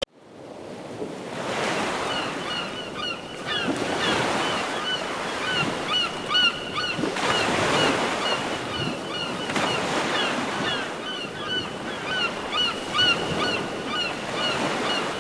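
Nature-sound ringtone on a 3Q Qoo!-XL mobile phone: ocean surf washing in and out, with short chirping bird calls repeating over it. It fades in over the first second or so and cuts off abruptly at the end.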